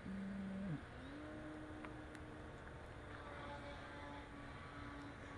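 Electric motor and propeller of a radio-control Edge 540T aerobatic plane in flight, a steady pitched whine that changes with throttle: louder for the first second, dropping away, then holding a steady slightly higher tone.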